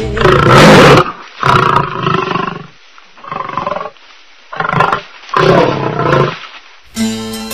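Male lion roaring: five calls in a row, the first the loudest.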